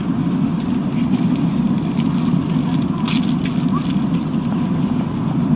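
Steady low drone of a jet airliner's cabin in cruise flight, with a few faint clicks about three seconds in.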